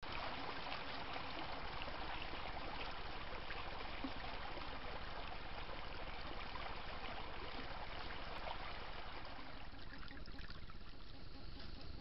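Creek water running and trickling in a steady rush that eases off a little about ten seconds in.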